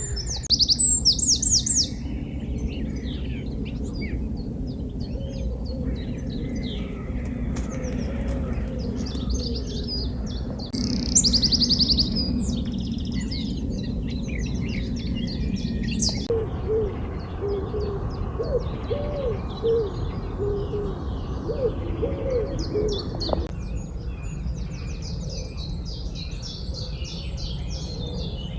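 Songbirds singing from several directions, with two loud bursts of fast, rapidly repeated trilled notes, one near the start and one about eleven seconds in. For several seconds past the middle, low, cooing calls repeat under the song. A steady low rumble runs underneath.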